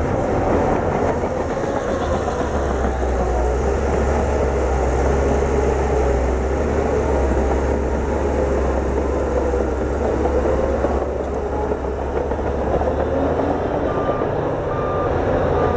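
Bulldozer's diesel engine running under load, its pitch rising and falling as it works. Near the end, a backup alarm beeps at an even rhythm as the machine reverses.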